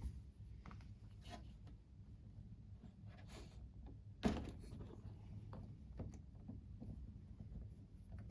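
Light handling noises on a workbench: faint clicks and rustles of small plastic parts, with one sharper knock about four seconds in, over a low steady hum.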